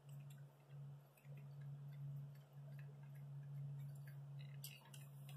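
Faint, light, irregular ticks and clicks of fingers turning a loosened glow plug out of an LML Duramax diesel's cylinder head, over a steady low hum. The clicks come a little more often near the end.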